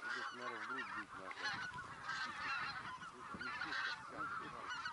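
A flock of wild geese calling, with many short overlapping honks at once.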